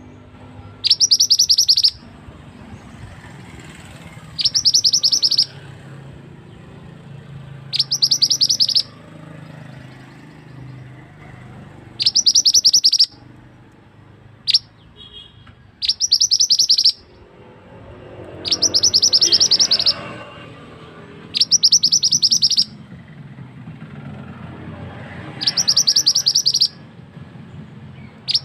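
Lure recording of a male red flowerpecker ("mandi darah" or "mantenan") calling. A loud, high, rapid trill about a second long repeats every three to four seconds.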